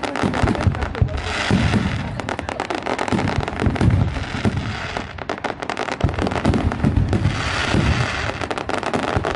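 Aerial fireworks display: many shell bursts booming and crackling in quick succession, overlapping one another.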